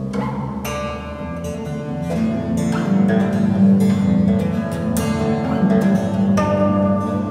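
Fretless acoustic bass guitar played fingerstyle: a run of plucked notes, each with a sharp attack, ringing out into the rich reverb of the underground hole.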